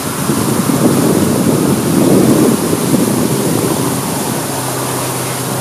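Wind buffeting the microphone in loud, uneven rumbling gusts over the steady splashing hiss of a large water fountain. A low steady hum comes in near the end.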